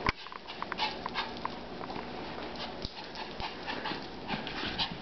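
A Pomeranian scampering about on a hard floor, its claws clicking in quick, irregular taps, with panting in between.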